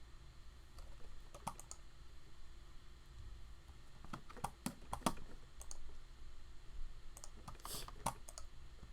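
Faint, scattered clicks from a computer keyboard and mouse, coming in small groups over a low steady hum.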